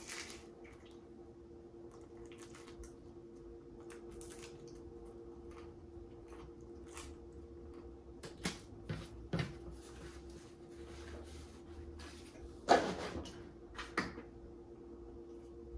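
Close-up chewing of pizza crust, with faint wet mouth clicks and small crunches over a steady low hum. Near the end a plastic gallon jug is picked up, giving a sharp knock and crackle and another a second later.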